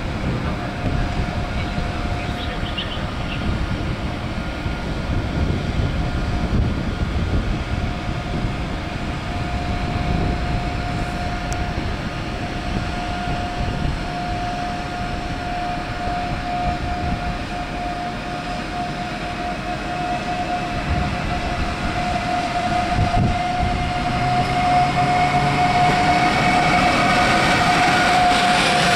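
Siemens EuroSprinter electric locomotive (PKP Intercity EU44 Husarz) drawing a passenger train slowly into a station, with rumbling running noise and a steady high whine. Both grow louder over the last few seconds as the locomotive comes alongside.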